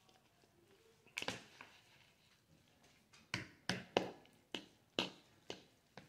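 Metal fork tapping and scraping against a bowl while twirling noodles: a single sharp click about a second in, then a run of about seven quick clicks over the last three seconds.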